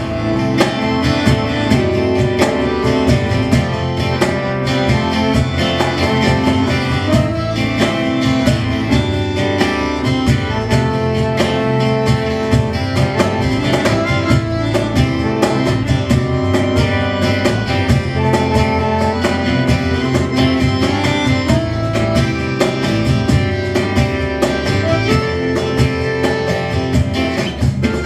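A band playing an instrumental passage, with the guitar out front over a steady beat.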